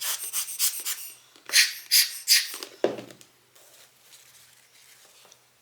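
Tissue paper rustling and crinkling as it is handled, in a series of short bursts, with a duller, deeper sound about three seconds in; then only faint handling noise.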